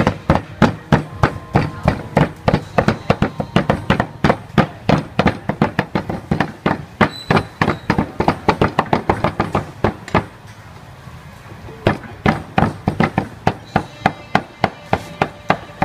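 Steel cleaver chopping raw meat into mince on a round wooden chopping block: rapid, even blows at about four or five a second, with a pause of over a second about ten seconds in.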